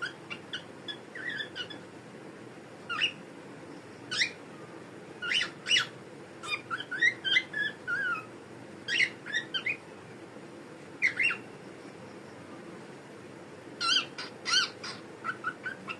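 Pet cockatiel chirping and calling: short sharp calls with pauses between them, a stretch of chattering, sliding chirps around the middle, and a quick run of short chirps near the end. A faint steady low hum runs underneath.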